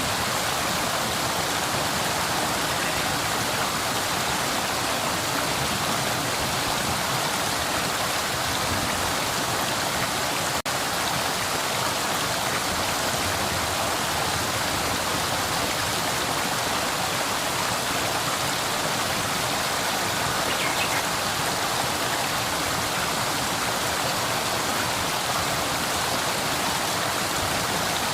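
Flowing river water: a steady, even rush of water with no let-up. The sound drops out for an instant about ten and a half seconds in.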